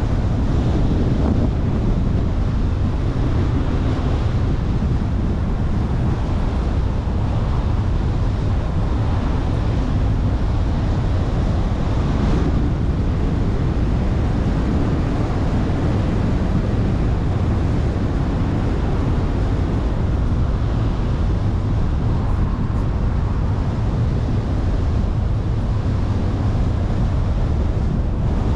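Steady wind noise on the microphone mixed with the tyre and road noise of a car driving at an even speed.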